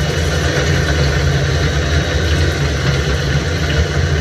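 CNC lathe running with its spindle turning the workpiece while an indexable square-insert drill cuts into the metal: a steady, loud machine drone with a low hum and a hiss of cutting noise over it.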